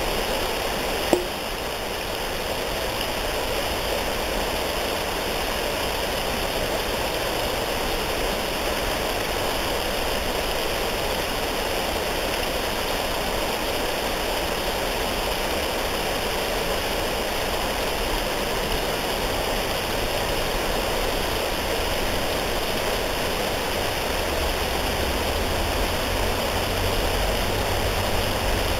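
Steady rushing of flowing water, like a nearby stream. A brief click comes about a second in, and a low rumble joins near the end.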